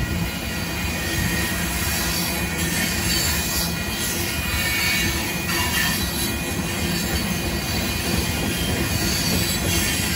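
Loaded limestone freight cars rolling steadily past, with the continuous rumble and rattle of steel wheels on rail and a faint high-pitched wheel squeal.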